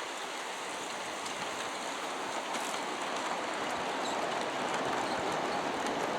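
G-scale model train of metal hopper cars rolling along the track, a steady rolling rumble of wheels on rail that grows gradually louder as the train approaches.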